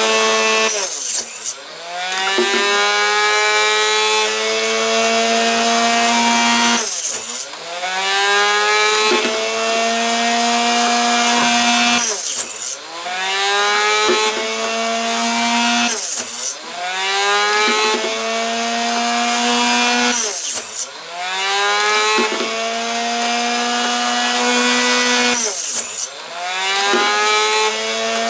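Electric chop saw running while it cuts through brass .300 AAC Blackout rifle cases, one after another: about six cuts, each pulling the motor's whine down sharply before it climbs back to full speed.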